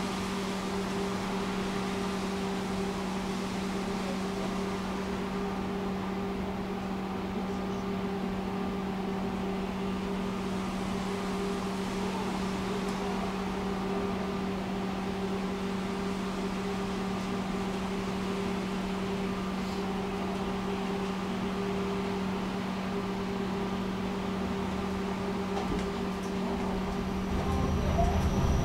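Tram standing still with a steady electrical hum from its onboard equipment. Near the end a low rumble rises as it starts to pull away.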